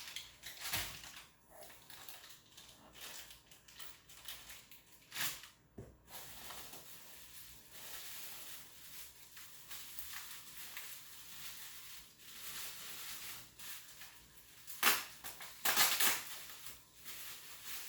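Packaging being handled and opened by hand: irregular rustling and crunching with scattered sharp noises, the loudest about five seconds in and twice near the end.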